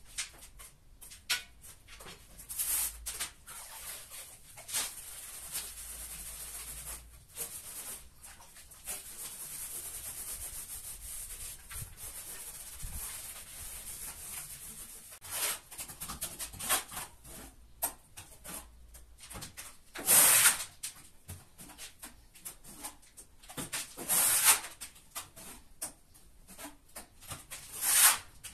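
Damp sponge rubbing and wiping over the ribbed back of a large porcelain tile, in uneven stretches of scrubbing. Three louder short bursts of noise come in the later part.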